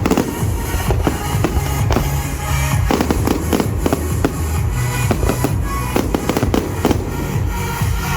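Fireworks show: a rapid run of aerial shell bursts and crackling reports, dozens of bangs close together, over a music soundtrack.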